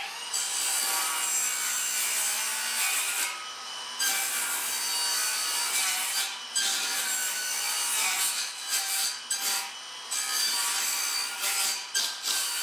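Handheld circular saw running and cutting through a sheet of plywood, its motor whine over the rasp of the blade, dipping in level briefly several times along the cut.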